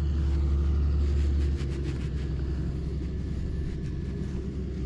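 Low, steady rumble of wind buffeting the microphone in an open field, easing a little about a second and a half in. Faint scratching of gloved fingers rubbing soil off a freshly dug coin sounds under it.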